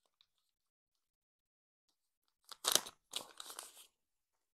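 A clear plastic packaging bag crinkling and rustling as it is opened, in two short bursts starting about two and a half seconds in.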